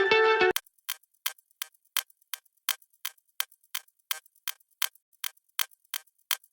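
Countdown clock ticking sound effect, about three sharp ticks a second, counting down the time to answer a quiz question. A short bit of music ends about half a second in.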